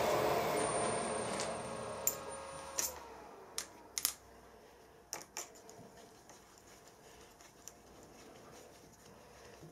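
Milling machine spindle running down after switch-off, its noise fading away over about the first three seconds. Then a handful of light metallic clicks and taps as hands work at the vise and the drill chuck to fit a drill bit.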